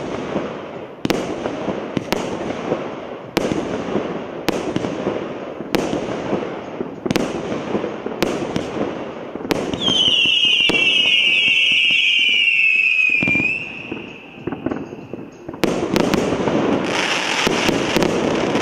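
A 110-shot consumer fireworks cake (Prestige Combi) firing, with a shot about every second, each followed by its bursts overhead. About ten seconds in, a cluster of whistles rises over the shots and falls slightly in pitch for a few seconds before fading. Near the end the shots come rapidly, with dense crackle.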